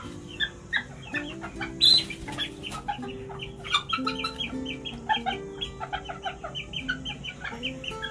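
Northern Vietnamese bantam chickens, a rooster and hens, clucking and pecking while they feed on chopped greens scattered on the coop floor, with a sharp louder burst about two seconds in. A background music melody plays under the clucking.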